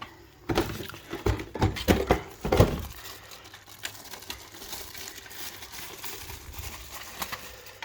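Plastic smoke alarm units being handled: a cluster of knocks, clicks and rustles in the first three seconds, the loudest two about two and two and a half seconds in, then lighter rubbing and scattered clicks.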